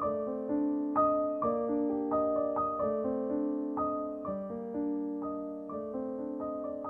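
Background piano music: a slow, gentle melody over sustained chords.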